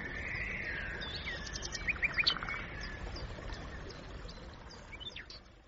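Small songbirds chirping with many short, quick calls and a brief trill, over water splashing from a bathing Eurasian sparrowhawk in the first second or two. The sound fades out near the end.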